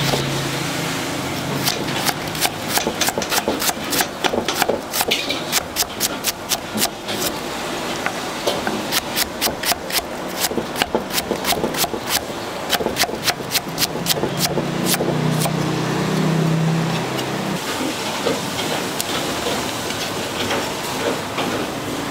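A metal spatula striking and scraping a large wok during stir-frying, in quick irregular clanks of about two to four a second that thin out in the second half.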